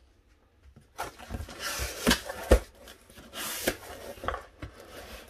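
Cardboard shipping box being opened by hand: flaps pulled back and cardboard scraping and rubbing, starting about a second in, with a few sharp knocks, the loudest about two and a half seconds in, as the boxed lower receiver inside is handled.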